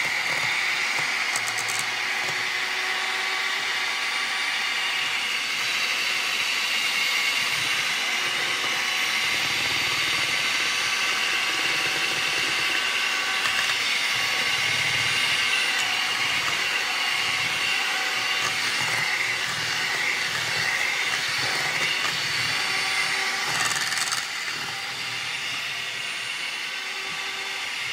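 Electric hand mixer running steadily at a constant speed, its beaters whisking cake batter in a stainless steel bowl as eggs are added one at a time. It gets a little quieter near the end.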